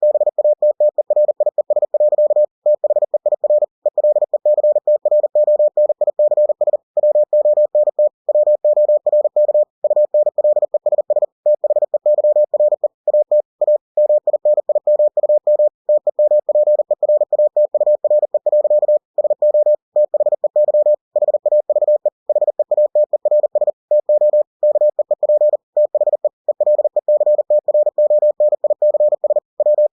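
Computer-generated Morse code (CW) sent at 40 words per minute: a single mid-pitched tone keyed on and off in rapid dots and dashes, with brief gaps between words.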